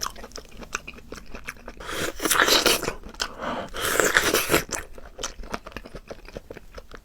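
Crunching bites and chewing of a fresh red-heart guava, with two louder spells of crunching about two and four seconds in.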